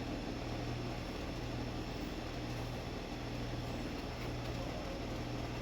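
A steady low hum over an even hiss, like a machine or unit running continuously.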